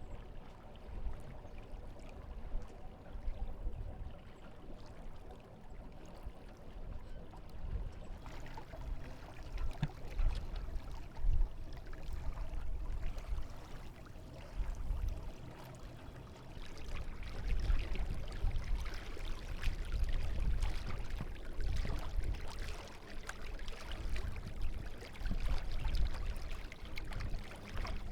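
Water rushing and splashing along a small sailboat's hull as it sails, with an uneven low rumble underneath; the rushing grows louder about a third of the way in and again past the middle.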